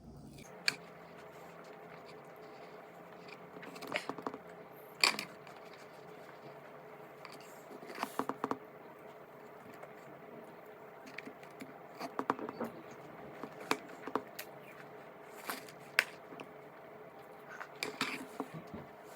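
Someone eating watermelon: a dozen or so short, scattered crisp crunches and wet clicks of biting and chewing the juicy flesh, over a faint steady hum.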